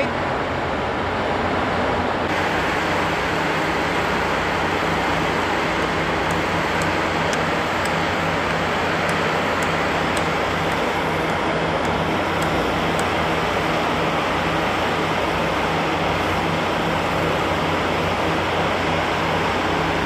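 Steady machine drone with a low hum from a concrete pour in progress: the concrete pump running and poker vibrators compacting the freshly placed concrete.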